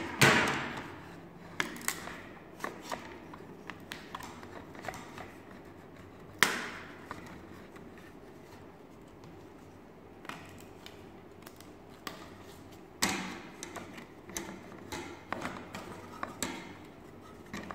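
Thin laser-cut plywood model-kit sheet being handled on a table, clacking sharply as it knocks down on the surface just after the start, about six seconds in and about thirteen seconds in, with small wooden clicks and taps in between.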